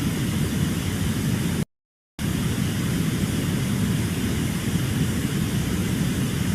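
Steady rumbling noise with a hiss over it. It cuts to dead silence for about half a second a couple of seconds in, then resumes just as before.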